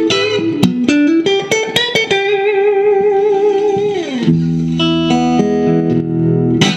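1983 Fender Elite Stratocaster electric guitar played through an amp: a quick run of picked notes, then a long held note with vibrato that slides down about four seconds in, then lower notes ringing until they are cut off near the end.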